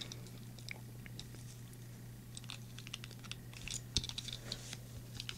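Handling noise from a small die-cast toy car being turned in the fingers: scattered small clicks and crinkly scratches, with a slightly louder knock about four seconds in, over a steady low electrical hum.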